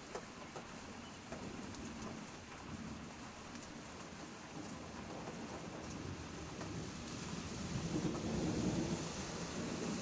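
Steady rain with a scattered patter of drops, and a low rumble that swells louder near the end.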